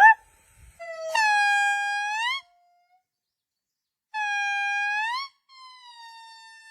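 A monkey giving three high, pitched calls of about a second each. Each call is held level, and the first two rise at the end. There is a pause of a couple of seconds after the first call, and the third call is fainter.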